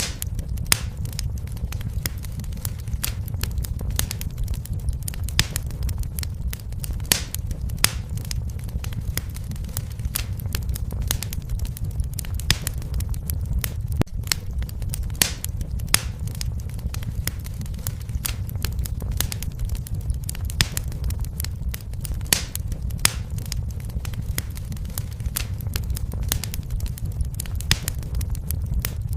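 Wood fire burning in a fireplace, crackling and popping irregularly over a steady low rumble of the flames.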